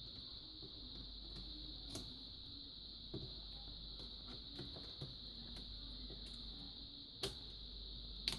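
Scattered light clicks and taps of parts being handled during a TV board swap, a handful over several seconds with the sharpest near the end, over a steady high whine and a faint low hum.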